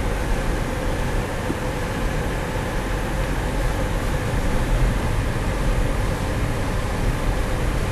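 Car driving along a dirt road, heard from inside the cabin: a steady rumble of engine and tyres on the unpaved surface.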